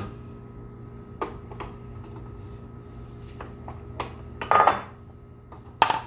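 Clinks and knocks of a ceramic bowl and the Nespresso machine's plastic water tank being handled on a countertop, with a louder rattling clatter about four and a half seconds in and a sharp knock near the end. A low steady hum runs underneath.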